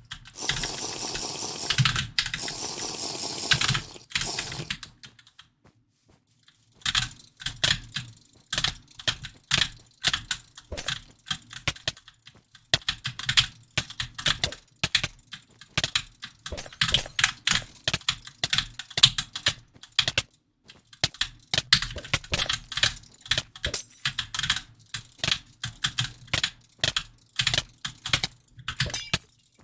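A steady noisy rush for about four seconds, then, after a short pause, a long irregular run of sharp clicks, a few a second, much like keys being typed.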